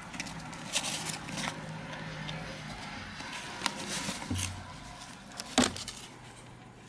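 Hamsters scrabbling over crumpled newspaper and tissue bedding while tugging at a piece of food: scattered crackles and rustles of paper, with a sharp knock about five and a half seconds in.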